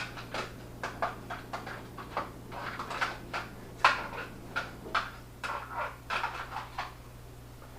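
Light irregular clicks and rustles, a few a second, of a vest being swept back and a Glock pistol drawn from and put back into an open-top Kydex holster. The sounds thin out near the end.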